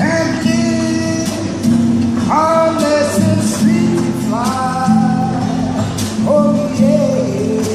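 A man singing in long notes that slide up into pitch, over a strummed guitar.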